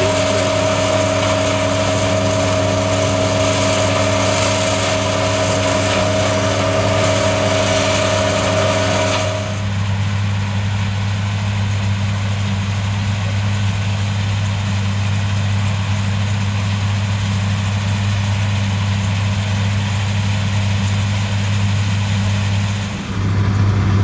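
John Deere S670i combine harvester running steadily while harvesting rice, its six-cylinder 9-litre PowerTech PSX diesel giving a low, continuous hum. A steady high whine over the hum in the first part stops abruptly about ten seconds in, leaving a duller running sound.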